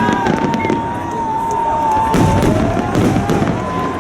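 Fireworks bursting with rapid bangs and crackles and low booms, under a long wavering whistle.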